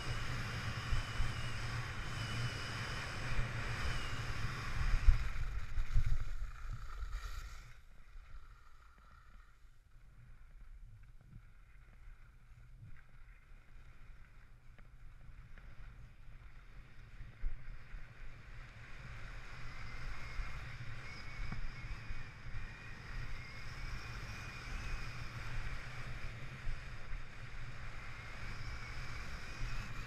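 Skis sliding and scraping over firm groomed snow, with wind buffeting the microphone. Loud for the first several seconds, it drops away about a quarter of the way in and builds again past the middle.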